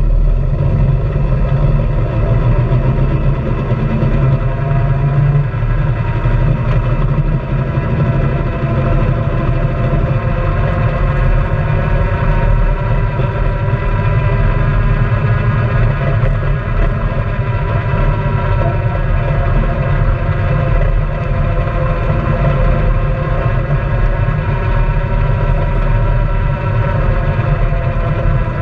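Honda Pioneer 700-4 side-by-side's single-cylinder engine running steadily under way, its pitch rising and falling a little with speed. Tyres crunch over loose gravel underneath.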